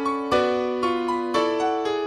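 Solo piano music accompaniment, struck chords and melody notes that ring and fade, a new chord about every half second.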